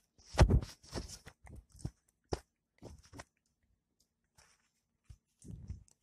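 Onions, green chillies and curry leaves being stirred in a frying pan: the utensil scrapes and knocks against the pan in a string of short, irregular strokes. A pause of about two seconds comes before a last stir near the end.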